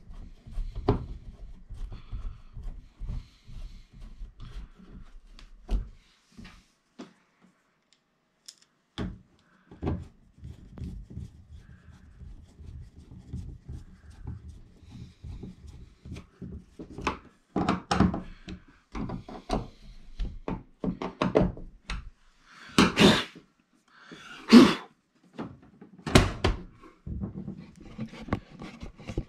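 Hand screwdriver turning screws into a washing machine's plastic dispenser housing: small clicks, scrapes and light knocks of plastic. In the second half come several louder sharp plastic knocks and thunks as the parts are handled and the dispenser lid is closed.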